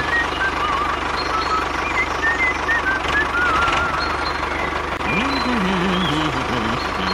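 A machine running steadily, with a low pulsing hum and a constant whine, over short high chirps. About five seconds in, a low wavering voice-like sound joins it.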